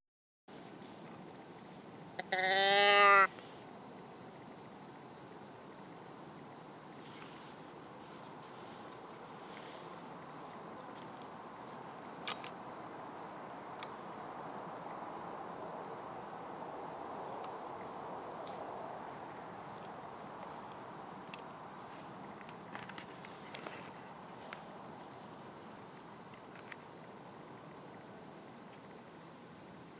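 Steady, high-pitched chorus of crickets and other insects. About two seconds in, a short, loud bleat with a wavering pitch rises above it.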